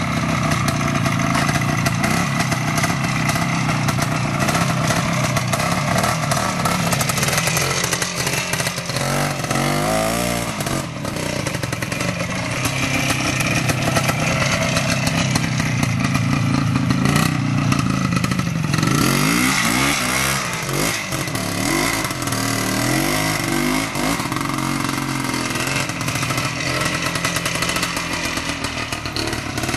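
Trial motorcycle engines running through the whole stretch, the pitch rising and falling as the throttle is blipped on steep climbs, with some clatter.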